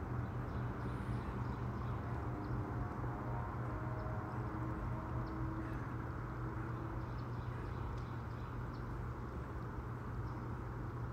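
Outdoor ambience dominated by a steady low hum, with faint short high chirps now and then.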